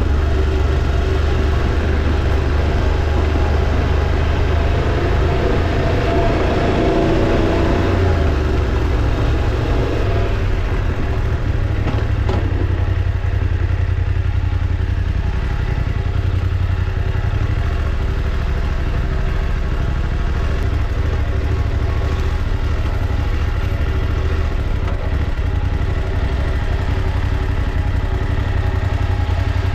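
Motorcycle engine running steadily under way, with no sharp revs or gear changes standing out.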